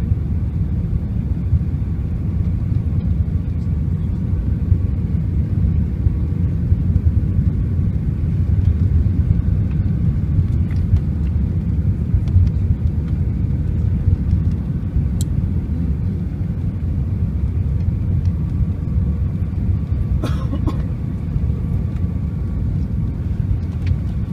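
Jet airliner cabin noise on final approach: the steady low rumble of the engines and airflow, heard from a window seat over the wing. There is a faint thin whine, and a few light clicks, the clearest about 20 seconds in.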